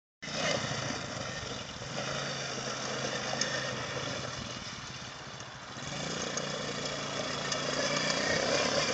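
Small 90cc ATV engine running steadily at idle, its note dipping slightly about halfway through and then picking up again.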